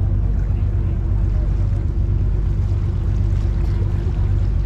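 Tourist river boat's engine running steadily, a continuous low drone heard from on board.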